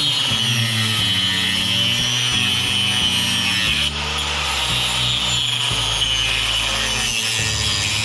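Wood being sawn steadily, with background music and a stepping bass line over it.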